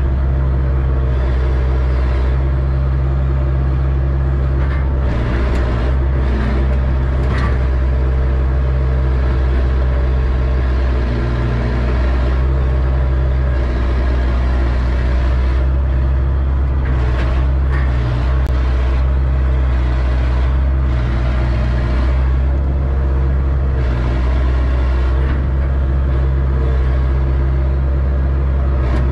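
Excavator diesel engine running steadily under load, heard from the operator's cab, as the bucket digs and strips topsoil, with occasional scraping from the bucket in the dirt.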